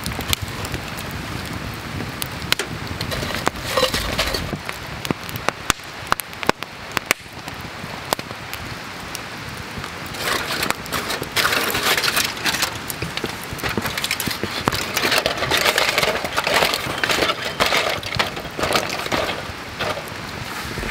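Wood campfire crackling, with many sharp pops and snaps scattered throughout; from about halfway through the crackle and hiss grow denser and busier.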